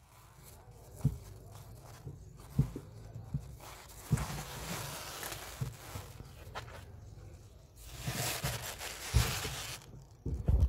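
Scattered dull thumps and knocks close to the microphone, with two stretches of rustling hiss. It ends in a cluster of knocks as the phone is handled and picked up.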